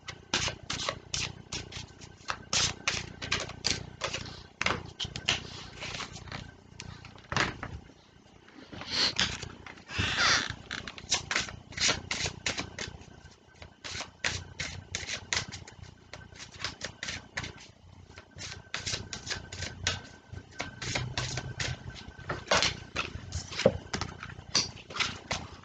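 A deck of tarot cards shuffled by hand: rapid, irregular clicks and slaps of cards against each other, with a longer rustle of sliding cards about nine to ten seconds in.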